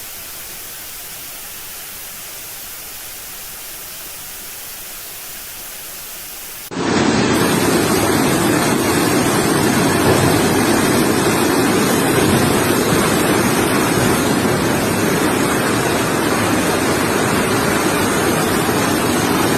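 A faint steady hiss, then about seven seconds in a sudden cut to loud, steady rushing floodwater.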